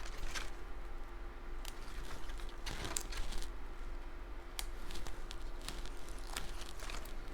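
Cardstock pieces being handled and pressed down while gluing: scattered soft rustles and light paper taps, over a faint steady hum.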